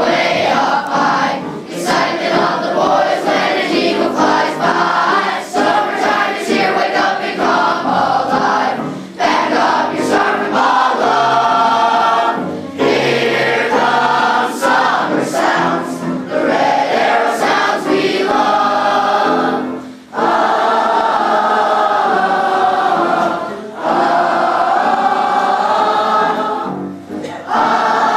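A large group of boys' voices singing together in chorus, in long held phrases with short breaks between lines.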